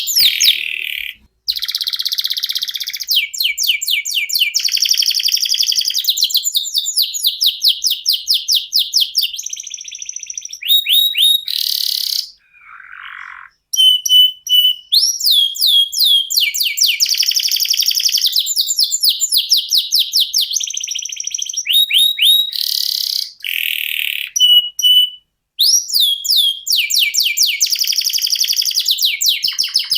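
Domestic canary singing a long, continuous song made of fast runs of rapidly repeated notes, rolling trills high in pitch. The song breaks off only for a few brief pauses.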